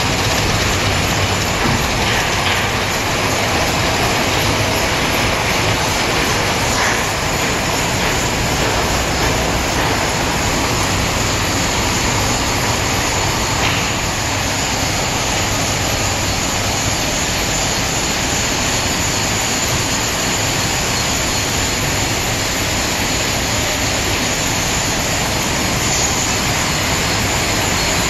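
Hank-to-cone yarn winding machines running, their cone drums and hank swifts turning: a loud, steady, unchanging mechanical noise.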